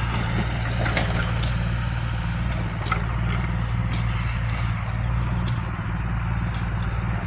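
Zoomlion excavator's diesel engine running steadily at a low, even pitch, with a few faint clicks.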